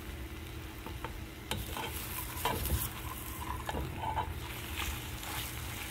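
Scrambled eggs sizzling in hot oil in a skillet while a spoon stirs and turns them over, with scattered short scrapes against the pan.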